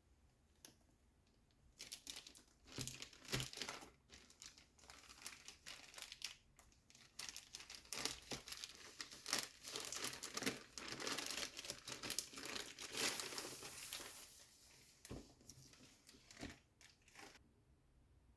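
Keyboard packaging being unwrapped and opened: crinkling and tearing noise in irregular spurts with a few sharp clicks. It starts about two seconds in and stops shortly before the end.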